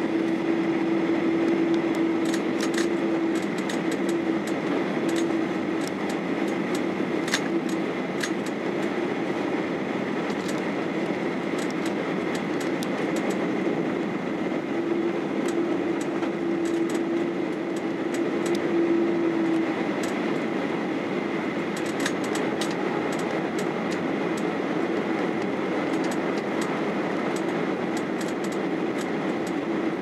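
Boeing 737-800 cabin noise in flight: the steady rush of airflow and the CFM56 turbofan engines, with a steady hum that comes and goes and scattered light ticks and rattles. The aircraft is descending toward landing.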